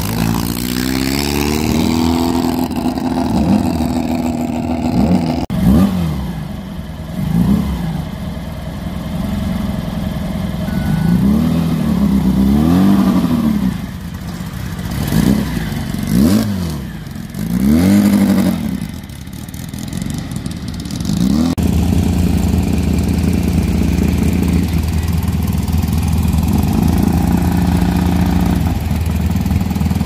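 Class 11 VW Beetle race cars' air-cooled flat-four engines running. A steady idle gives way to a series of short throttle revs, each rising and falling, in the middle, and a steady idle again after about twenty seconds.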